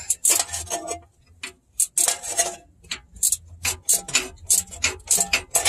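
Hand ratchet clicking in quick, irregular runs as it is worked back and forth on a fastener.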